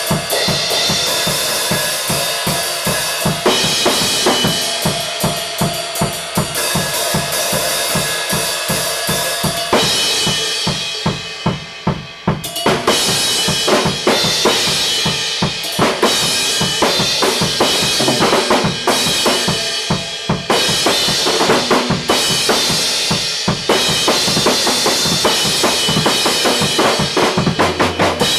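Acoustic drum kit played in a fast solo: rapid bass drum, snare and tom strokes under a constant wash of cymbals. About ten seconds in, the playing thins and quietens for a couple of seconds, then comes back in at full strength.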